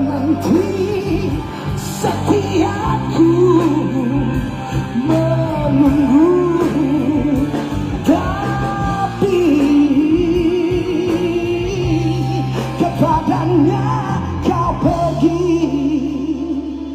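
Singing with a pop-rock band backing: the melody is held in long notes that bend and slide in pitch.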